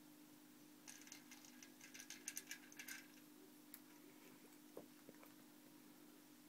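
A cat eating dry kibble from a plastic bowl: a quick run of faint clicking crunches for about two seconds, then a few stray ticks. Under it runs the steady low hum of a Catit drinking fountain's pump.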